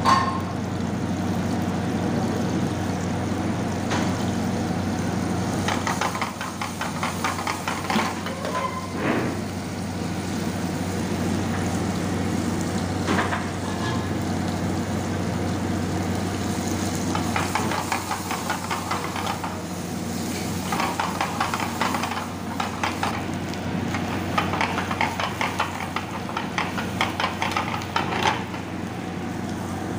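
Chopped garlic, then chopped onion and green chillies, sizzling and crackling in hot oil in a small frying pan, in spells that come and go, with a ladle stirring the pan near the end. Under it runs a steady low hum.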